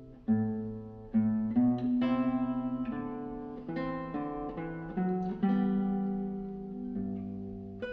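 Background music: an acoustic guitar picking single notes and chords, each note ringing and fading, with a quickly repeated note about two seconds in.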